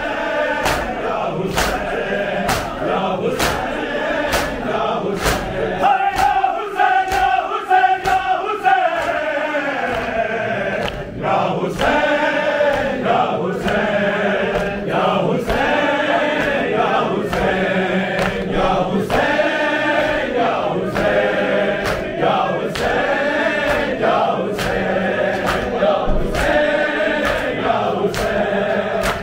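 A crowd of men chanting an Urdu noha in unison, with the even slaps of matam (open hands striking chests) about one and a half times a second. The slaps drop out for a few seconds about six seconds in while a long line is held and falls, then come back.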